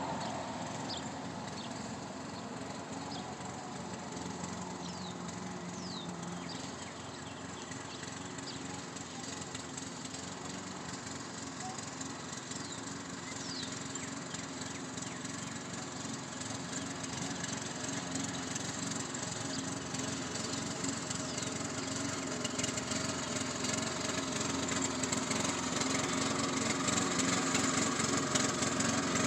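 Remote-controlled lawn mower running steadily, growing gradually louder over the second half.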